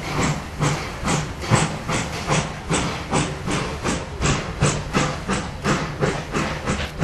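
FS class 880 steam tank locomotive pulling away, its exhaust chuffing in a steady beat that quickens a little as it gathers speed, over a continuous steam hiss.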